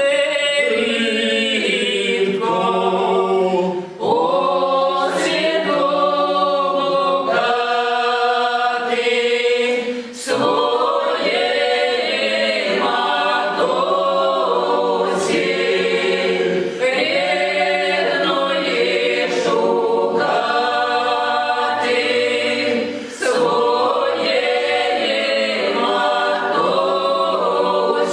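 Folk ensemble of women's and men's voices singing an unaccompanied Russian psalm in parts, in traditional Russian and Cossack style. Phrases are broken by short breath pauses about 4, 10 and 23 seconds in.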